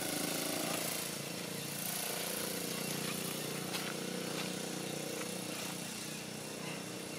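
A steady motor drone, like an engine running without a break, with a few faint ticks.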